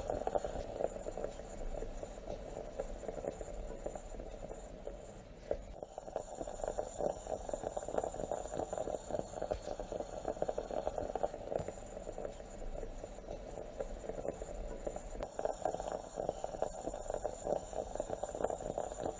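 Stovetop moka pot gurgling and sputtering continuously with many fast small pops, the sound of coffee being forced up into the upper chamber as it brews.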